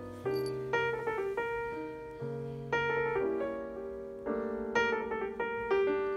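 Piano music: single notes and chords struck and left to ring out, a new one every half second or so.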